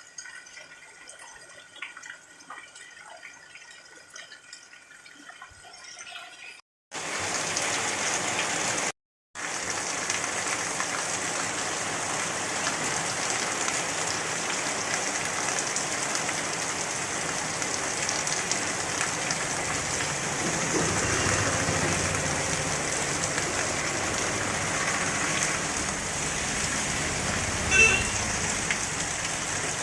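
Heavy rain falling, a steady hiss that starts abruptly about seven seconds in after a much quieter stretch, with a short break of silence about two seconds later. A brief louder sound stands out near the end.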